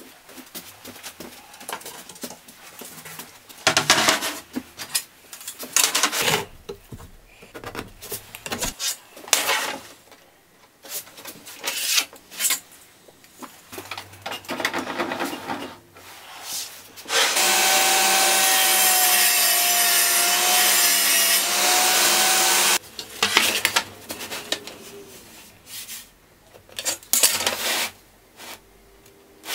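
Wood-handling sounds: short knocks, scrapes and rubbing as plywood sheets and tools are moved about. In the middle, a table saw runs and cuts through 9mm plywood for about six seconds, a steady loud noise with a slightly wavering whine that starts and stops suddenly.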